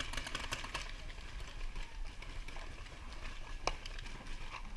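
Paintball gear handled during a reload: a few sharp clicks, the clearest about three and a half seconds in and another near the end, over a steady outdoor hiss.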